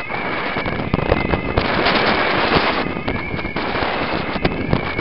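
Crackling wind buffeting and road noise on the microphone of a moving vehicle, loudest about two seconds in. An emergency vehicle's siren sounds through it, fading in and out under the noise.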